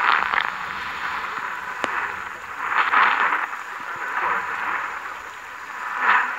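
Shortwave AM reception of the Firedrake station on 5890 kHz through a Degen DE1103 portable radio's speaker: the music signal has faded into a narrow-band hissing static that swells up twice and dips between. One sharp click comes a little under two seconds in.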